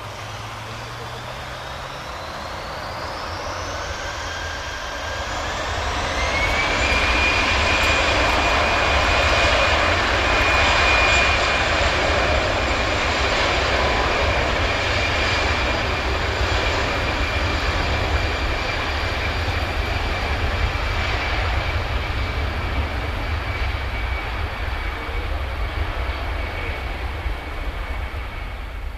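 Airbus A319's twin jet engines spooling up for takeoff. A high whine rises over the first several seconds, then the engines run loud and steady at takeoff power, with the whine held high as the airliner accelerates down the runway.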